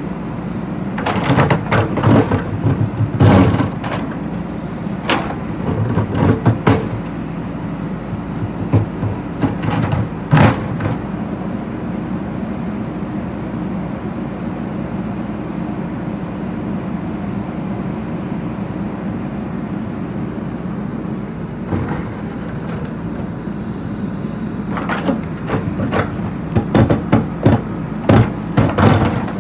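JCB backhoe loader's diesel engine running steadily, with bursts of sharp clanks and knocks from the bucket working on brick and stone, in the first third and again near the end.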